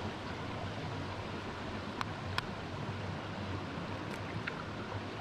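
Steady rush of a flowing stream. About two seconds in, two sharp taps half a second apart as an egg is knocked to crack its shell, then fainter clicks of the shell being pulled open a little later.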